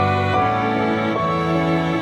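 Background music only: slow sustained notes and chords that change a few times.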